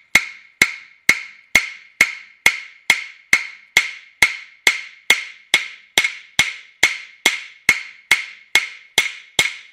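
Ball peen hammer tapping steadily on a dished steel core plug in a cast iron engine block, a little over two even strikes a second, each with a short metallic ring. The blows flatten the dished plug so it expands tight into its bore and seals.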